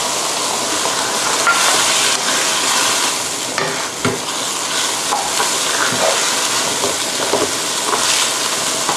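Shrimp and water mimosa sizzling in a hot nonstick wok as they are stir-fried, with a steady frying hiss. From about halfway on, the spatula scrapes and knocks against the pan roughly once a second.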